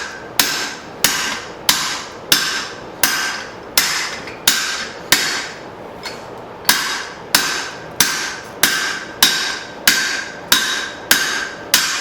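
Hand hammer striking a hot steel cross peen hammer head on an anvil in steady, light cleanup blows, about three every two seconds, each blow ringing briefly. The run breaks for a moment about halfway through, then resumes.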